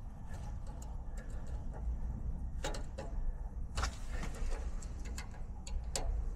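A few sharp metallic clicks and taps from a loose part being squeezed tighter by hand, over a steady low rumble.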